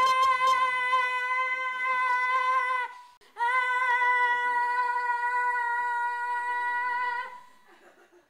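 A woman singing one long high note at a steady pitch, held for about three seconds, then after a short breath held again at the same pitch for about four seconds before stopping.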